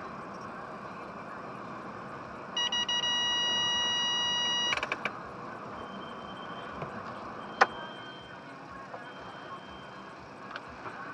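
Steady hum in a car wash bay, with a loud continuous electronic beep held for about two seconds a few seconds in, ending in a few clicks, then a single sharp click about halfway through.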